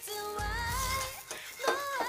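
Background music: a pop song with a singing voice over bass.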